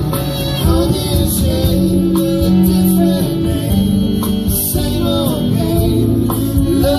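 Live band playing a rock song on stage: acoustic and electric guitars, violin, keyboard and drums, with singing.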